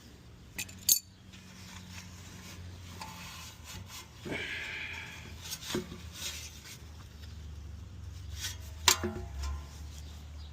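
Hand tools clinking, knocking and scraping on metal while the fan blade is taken off an air-conditioner condenser fan motor, with a brief ringing tone about four seconds in and a sharp clank near the end, over a low steady hum.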